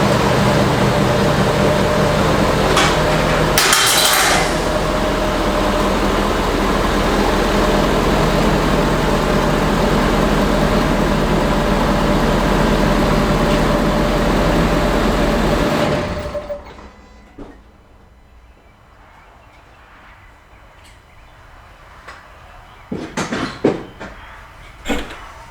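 Ford F-250's 6.7 L Power Stroke V8 turbodiesel running steadily as the truck is pulled in, then shut off about sixteen seconds in. A few sharp knocks follow near the end.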